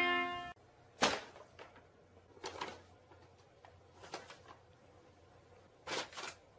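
A music note cuts off about half a second in. Then a few faint, sharp knocks or taps come in a quiet room, spaced a second or more apart.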